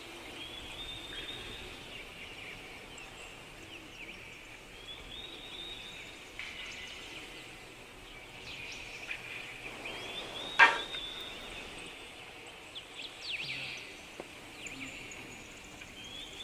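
Quiet outdoor ambience with high chirping calls that come back every few seconds, and one sharp knock about ten seconds in.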